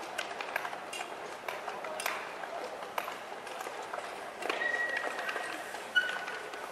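Speed skating rink ambience: irregular sharp clicks and scrapes, typical of skate blades striking and scraping the ice, over faint voices. A short high tone sounds about four and a half seconds in, and a sharp loud click about six seconds in is followed by another brief tone.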